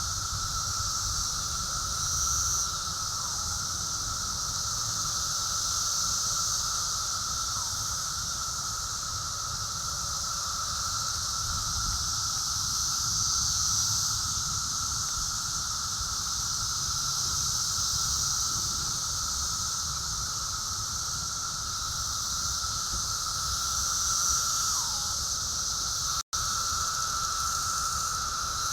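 A chorus of cicadas droning continuously: a steady mid-pitched whine with a higher, hissier band above it. The sound cuts out for an instant near the end.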